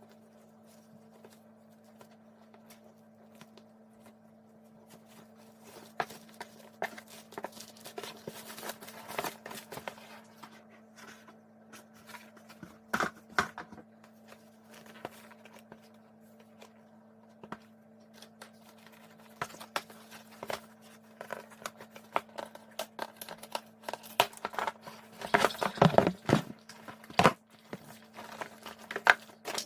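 Packaging being handled during an unboxing: scattered crinkling, tearing and light knocks of plastic and box material, getting busier and louder near the end, over a steady low hum.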